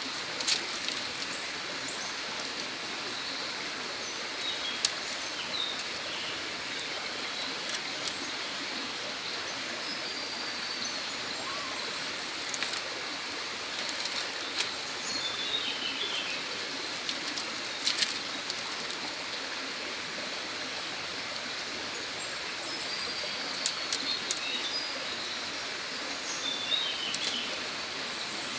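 Steady rushing outdoor background noise, with small birds chirping briefly at several points and a few sharp clicks or taps.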